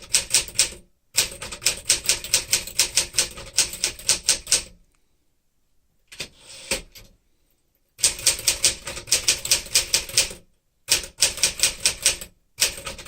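1964 Smith-Corona Sterling manual typewriter being typed on: a quick, even run of type bars striking the platen, about five or six a second. The typing stops a few times, with one longer pause of a few seconds in the middle.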